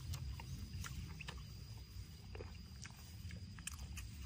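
Close-miked eating sounds: steamed meat being torn apart by hand, then bitten and chewed with wet clicks and smacks, over a steady low rumble.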